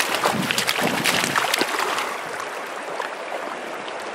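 Stream water running over stones, busier and splashier for the first two seconds, then settling to a steadier, quieter flow.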